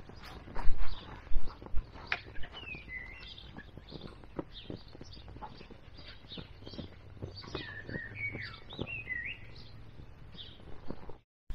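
Small songbirds chirping and twittering in short gliding phrases over a steady crackle of sharp clicks and pops from a wood and charcoal fire in a steel fire pit. A few louder thumps come in the first two seconds.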